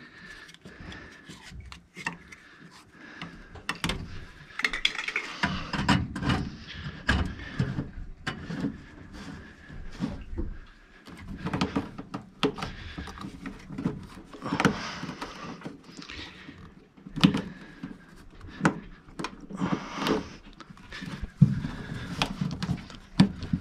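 Irregular clicks, knocks and scrapes of hands working metal parts, pipe and wiring inside a gas furnace cabinet, with two sharper knocks in the second half.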